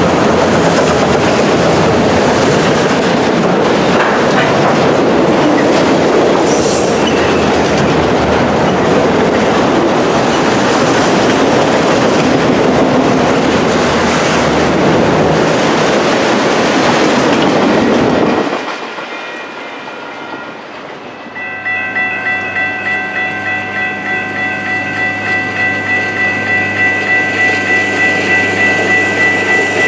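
A freight train of autorack cars passing close by, its wheels clicking over the rail joints, stops abruptly about 18 seconds in. A few seconds later a railroad grade-crossing bell starts ringing steadily, about two strokes a second.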